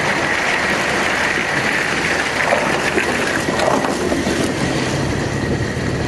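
Tracked armoured vehicle driving past, its engine running under a steady clatter and squeak of the tracks, with a faint high whine.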